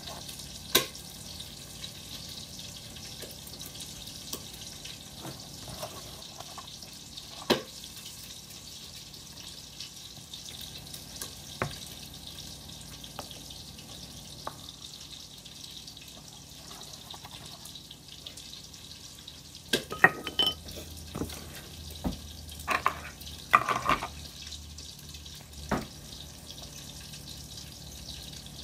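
Hands working bread dough in a large mixing bowl: scattered knocks and taps against the bowl, with a busy run of them about twenty seconds in, over a steady hiss.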